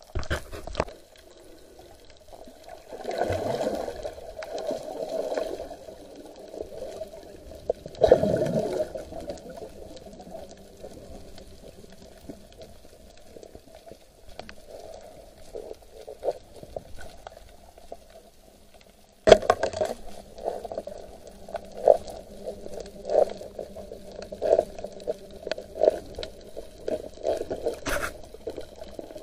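Muffled water noise picked up by a submerged camera, with a steady hum underneath. Swirling water surges come about three and eight seconds in, and from about nineteen seconds on there is a run of small clicks and knocks.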